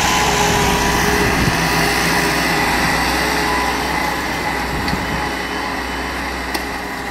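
Massey Ferguson 385 tractor's Perkins diesel engine running steadily under load while pulling a disc harrow, growing slowly fainter as the tractor moves away.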